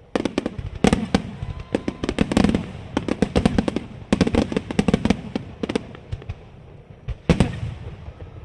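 Aerial fireworks shells bursting: rapid volleys of sharp bangs and crackling reports, thickest in the first half, easing off, then one loud bang about seven seconds in.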